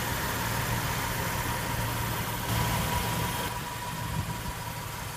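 A car engine idling: a steady low hum with a faint steady whine above it, a little quieter from about three and a half seconds in.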